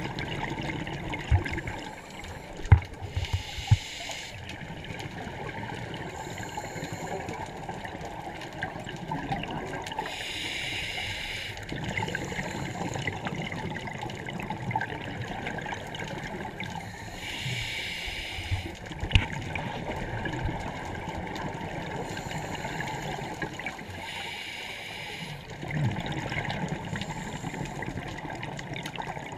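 Underwater sound of a scuba diver breathing through a regulator: a hiss with each breath, roughly every seven seconds, over steady bubbling and gurgling water. A few sharp low knocks sound near the start and once more a little past the middle.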